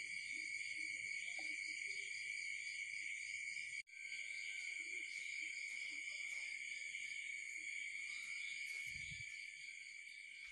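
Faint, steady high-pitched insect chorus, shrill and slightly pulsing. It breaks off for an instant about four seconds in, and a brief low thump comes near the end.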